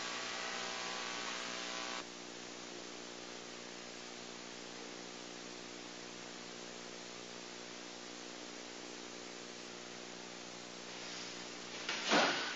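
Steady electrical hum of several steady tones over an even hiss, dropping a little in level about two seconds in. A short burst of noise comes near the end. No kicks or pad strikes are heard.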